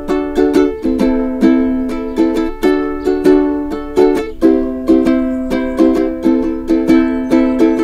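Background music: a plucked string instrument picking a quick, repeating pattern of notes, each ringing out and fading.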